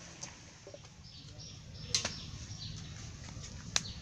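Birds giving a string of short, high chirps, with two sharp clicks nearly two seconds apart.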